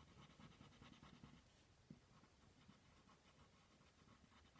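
Faint scratching of a crayon coloring on paper in quick, repeated strokes.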